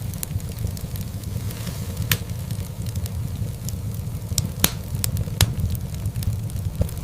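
Wood fire burning in a fireplace: a steady low rumble of flames with scattered sharp crackles and pops, the loudest two coming a little past halfway.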